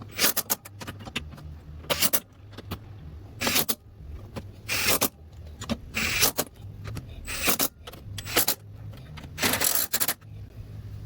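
Short bursts of metallic jangling and scraping, about eight of them, roughly one every second or so, over a steady low hum: tools or metal parts being handled.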